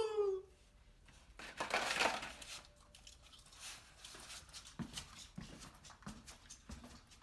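A brief rustle, then shoes knocking on a hard corridor floor as a person runs off, about one to two steps a second.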